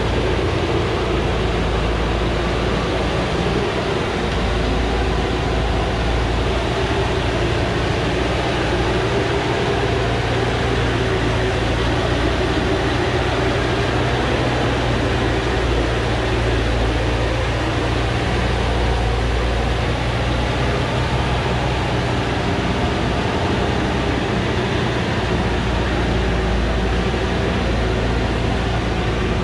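Engine of a small truck loaded with acacia logs, running steadily under load as it climbs a steep dirt track, with a deep, even hum.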